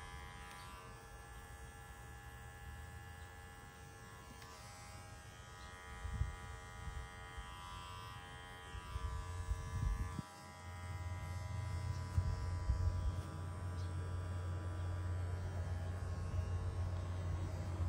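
Nova electric hair clipper running steadily with a buzzing hum as it trims short hairs at the nape of the neck. About ten seconds in, a low rumble comes up underneath and grows louder.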